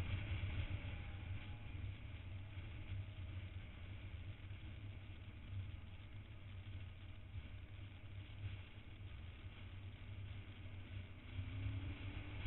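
Motorcycle engine running while riding at road speed, under a heavy low rumble of wind and road noise. Near the end the engine pitch rises and the sound grows louder as the bike accelerates.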